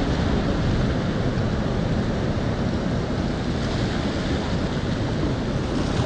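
Ocean surf washing in and breaking: a steady, unbroken rushing wash, heaviest in the low rumble.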